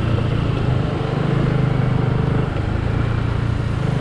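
Motorcycle engine running at a steady speed while riding, a fast pulsing hum under a rush of wind and road noise.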